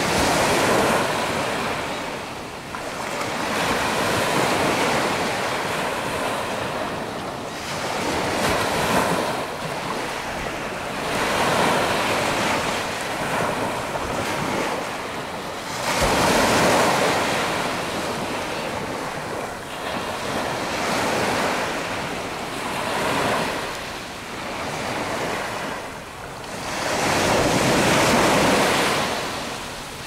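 Small surf washing up on a sandy beach, swelling and fading every few seconds, with wind on the microphone.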